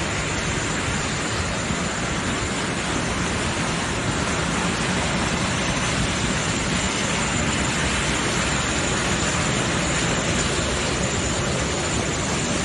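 Steady rushing noise of a vehicle driving through deep floodwater, with water washing against its side.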